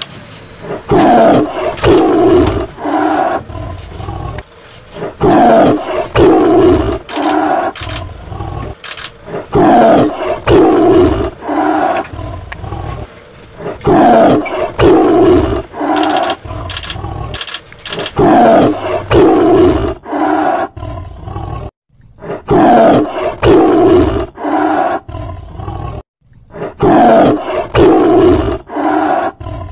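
Lion roaring in repeated bouts about every four seconds, each bout a few loud roars tailing off into shorter, quieter grunts. The track drops out briefly twice in the second half.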